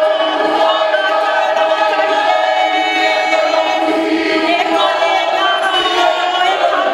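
A group of voices singing together in long held notes: a Māori song of welcome sung as the visitors are brought in.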